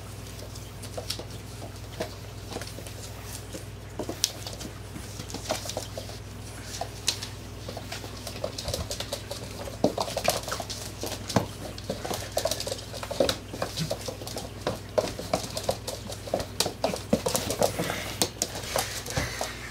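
Pit bull puppy's claws clicking and pattering on a hardwood floor as he scampers about, mixed with a person's shuffling footsteps. The taps come in quick irregular runs, busier from about halfway through, over a low steady hum.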